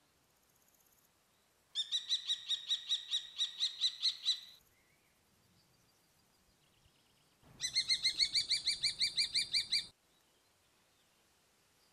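Common kestrel calling: two bouts of fast, shrill repeated 'kee-kee-kee' notes, about five or six a second, each lasting a couple of seconds with a short pause between.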